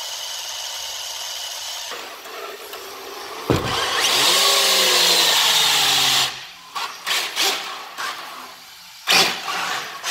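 RC car's electric motor whining at high revs in a burnout, wheels spinning in place. About three and a half seconds in, a sudden louder surge with a falling motor note and a loud hiss runs for about two and a half seconds. Short throttle bursts follow, and a sharp hit comes near the end.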